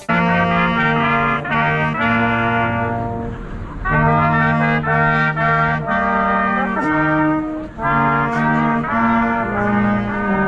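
Brass band of trumpets and trombones playing a Christmas carol in sustained chords, the harmony changing about once a second.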